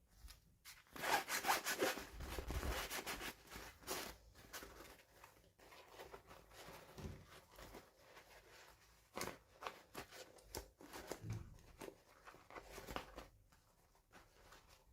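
Hands handling and opening toy packaging: rustling and scraping with many scattered clicks, busiest in the first few seconds.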